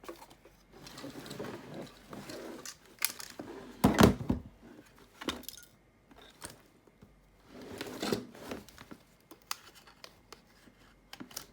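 A walkie-talkie being taken out of and fitted into a 3D-printed plastic MOLLE mount: plastic scraping and rustling, scattered clicks, and one sharp knock about four seconds in.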